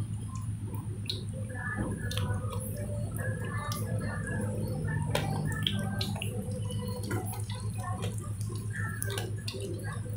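Spring rolls deep-frying in a wok of hot oil: steady sizzling with many small crackling pops, over a steady low hum.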